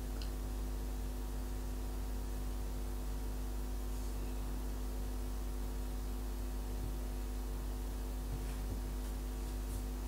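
Steady electrical mains hum, with a few faint light ticks.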